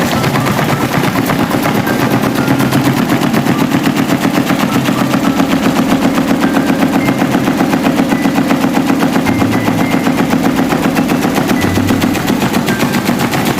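Electric fan with a broken propeller running, making a fast, even clatter over a steady motor hum.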